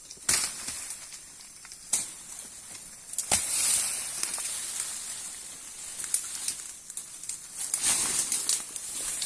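Rustling and crackling of plants being handled, with three sharp knocks about a second and a half apart in the first few seconds.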